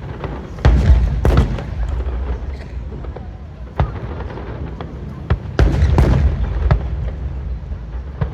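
Aerial fireworks going off in a rapid series of booms and sharp cracks over a continuous low rumble. The loudest clusters come about a second in and again around six seconds in, with single bangs between them.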